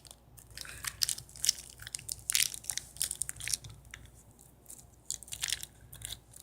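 Plastic toy packaging crinkling and crackling in irregular bursts as it is worked open by hand, busiest in the first few seconds and thinning out after.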